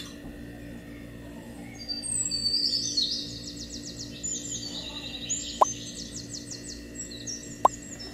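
Subscribe-button animation sound effects: high, chirping bird-like trills and quick sweeps, then two sharp mouse-click sounds about two seconds apart, over faint background music.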